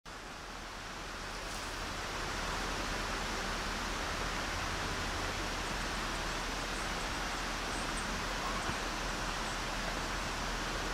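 Steady rushing of a waterfall, an even hiss that swells over the first two seconds and then holds steady.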